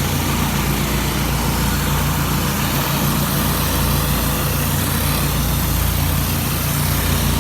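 Gas engine of a commercial pressure washer running steadily, with an even hiss over it.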